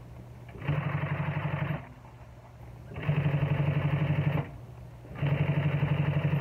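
Industrial sewing machine stitching leather in three short runs of rapid, even stitches, its motor humming steadily in the pauses between runs. It is top-stitching a motorcycle seat cover through three layers of leather.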